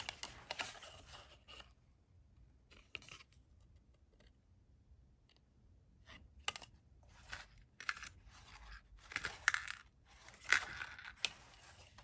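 Cotton shirt fabric and its card hang tag rustling and crinkling as they are handled. The sound comes in irregular bursts with sharp little clicks, busiest near the start and through the second half.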